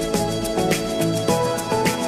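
Background music: a melody of held notes over a steady beat of about two strikes a second.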